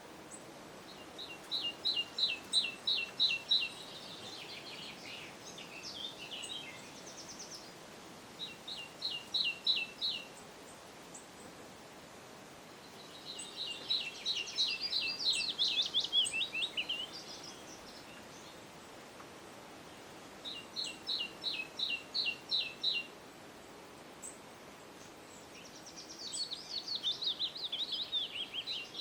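A songbird singing in phrases a few seconds apart. Some phrases are runs of about seven evenly spaced, high chirping notes, several a second; others are faster, jumbled twittering figures. A faint steady hiss of background noise lies under the song.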